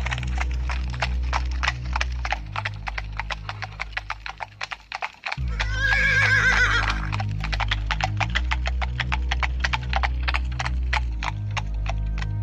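Horses' hooves clip-clopping in a quick, even rhythm, the sound of a horse-drawn carriage. The hoofbeats fade away about four seconds in, then come back loud with a horse neighing about six seconds in, and keep going to the end.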